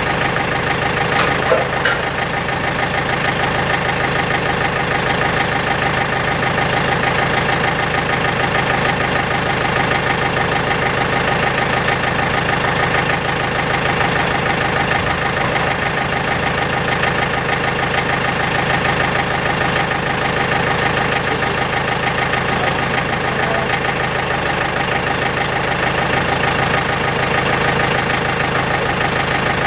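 An engine idling steadily with an even drone, with a single light clink about a second and a half in.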